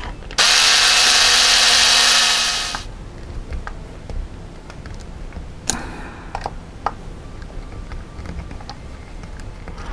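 Cordless electric screwdriver running for about two and a half seconds, driving a screw into the plastic front gearbox housing of a 1/10 RC buggy chassis. After it stops come a few light clicks and taps of small plastic parts being handled.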